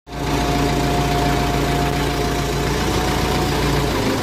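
Engine of a forklift-type loader running steadily at idle, with a thin steady whine above it; the engine note shifts just before the end.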